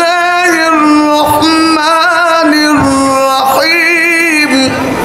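A man reciting the Quran in Arabic in melodic tajweed style through a microphone and loudspeakers. He holds long, ornamented notes in several phrases broken by short pauses.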